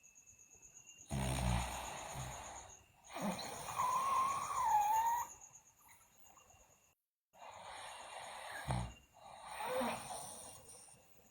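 A sleeping girl snoring: two breath cycles, each with a short rattling snore and then a long, rough breath, the first carrying a wavering whistle.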